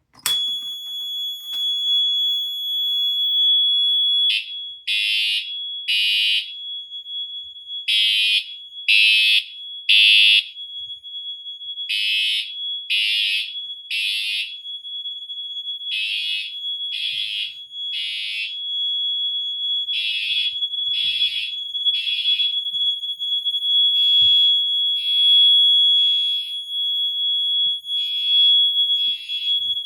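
Two Siemens fire alarm horns sounding together from a pulled pull station. The blue Siemens UMH1G mini horn gives a steady, high-pitched tone like a smoke alarm. About four seconds in, a louder Siemens horn strobe joins it, blasting in the temporal-three evacuation pattern: three short blasts, a pause, repeating.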